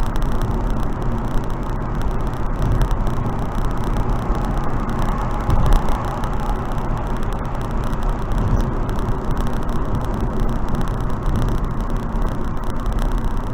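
Wind and road noise of a car driving at steady expressway speed: an even rushing noise with a low rumble underneath, with only small swells in level.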